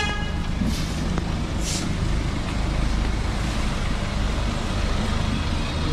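Street traffic with a heavy vehicle running, a steady low rumble under an even hiss. There is a brief high-pitched tone at the very start, then two short hisses about a second in.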